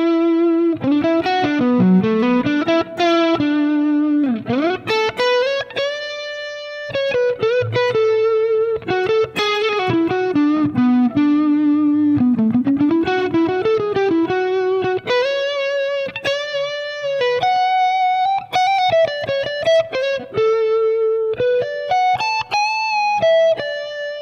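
Electric guitar playing a singing single-note blues lead, with string bends and vibrato on held notes. It runs through a Fractal FM9 modeller with the Sunrise Splendor drive, a model of the JHS Morning Glory Bluesbreaker-style overdrive pedal, switched on.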